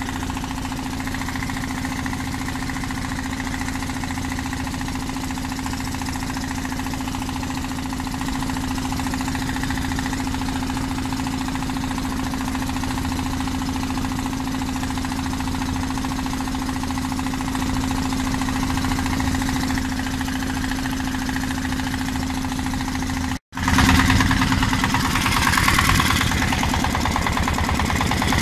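Fishing boat's engine running steadily with an even hum. About 23 seconds in it cuts out for an instant, then comes back louder and rougher.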